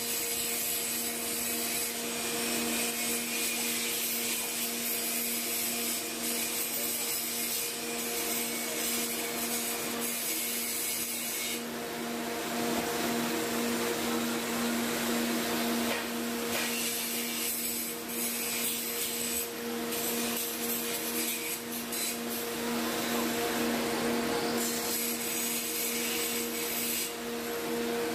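Power grinder running with a steady motor hum and a hissing grind whose high part swells and drops several times.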